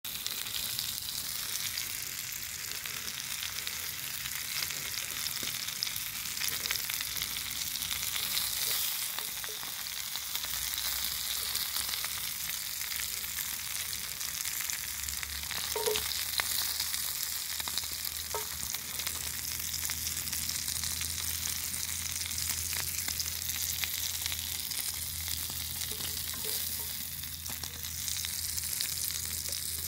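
Lamb pieces and vegetables frying in a speckled enamel pan: a steady sizzle with fine crackling as they are turned, with a few sharper clicks around the middle.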